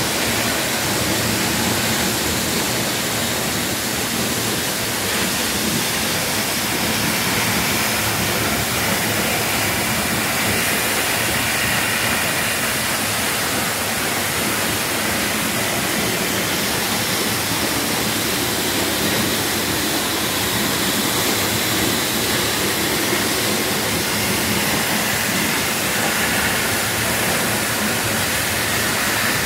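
Tamanawas Falls, a tall waterfall, heard from right behind its falling curtain of water: a loud, steady rush of water pouring onto the rocks, with no change throughout.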